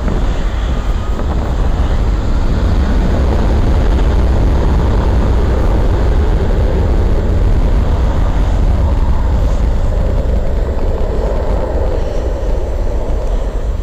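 Twin jet engines of a Boeing 757-200 at takeoff power during its takeoff roll: a loud, steady rumble that builds over the first second or two.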